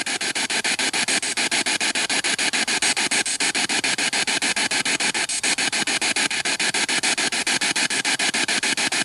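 Spirit box sweeping through radio stations and played through a small portable speaker: a rapid, even chopping of static, about eight pulses a second.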